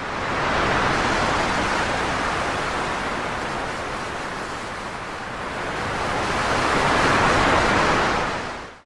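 A steady rushing noise like surf or wind. It fades in, swells twice and fades out, with no voices over it.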